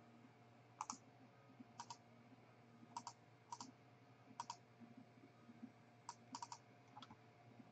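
Faint clicking at a computer: about a dozen short, scattered mouse and keyboard clicks, some in quick pairs.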